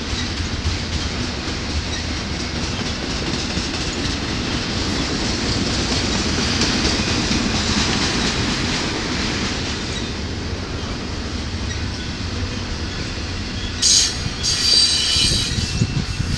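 Double-stack intermodal well cars rolling past at speed: a continuous rumble and rattle of steel wheels on the rails. A few louder, harsher bursts come near the end as the last cars go by.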